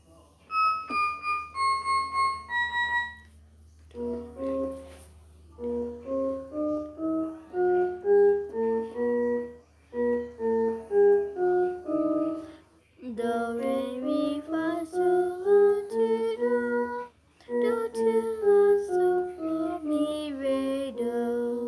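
Toy electronic keyboard played by hand. A few high notes step downward, then runs of paired notes climb and fall along the keys several times, ending on a held chord.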